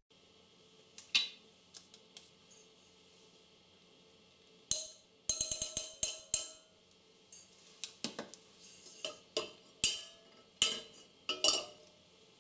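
A metal spoon clinking and scraping against the inside of a stainless steel pressure cooker as ghee is spooned in, in scattered runs of quick taps.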